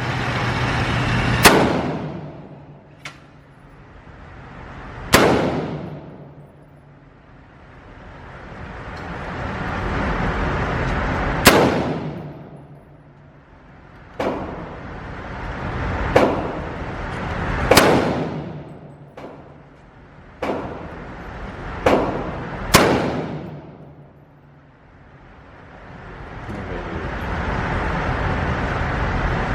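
Gunshots at a shooting range: about eight loud single shots fired irregularly, from a second to several seconds apart, each with a short ringing tail, and a few fainter shots in between. A rushing noise swells and fades in the gaps.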